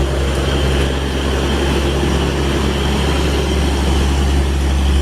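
Steady low engine drone, a vehicle-engine sound effect for the toy box truck.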